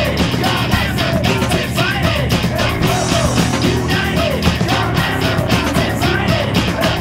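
Punk-rock song with drums and guitar playing a steady beat.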